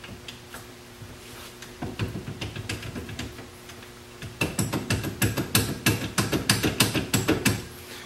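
Loose front wheel hub on a Polaris RZR clicking and knocking as the wheel is rocked by hand: a few soft clicks at first, then a quick run of several clicks a second from about halfway in. The clicking is play at the wheel, which the owner takes for a failing aftermarket wheel bearing or too few washers behind the axle nut.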